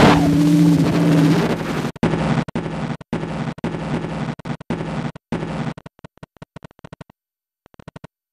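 A low, steady two-note drone over hiss. About two seconds in it breaks into a rapid stutter of chopped fragments that thin out and stop just before the end.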